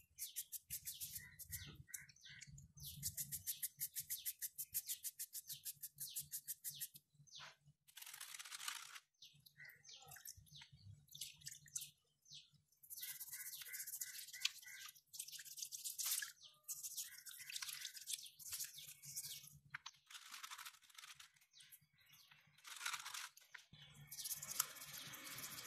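A small stiff brush scrubbing dried paint out of a paintbrush's bristles in bursts of quick strokes, several a second. Near the end the paintbrush is scrubbed wet in a bowl of water.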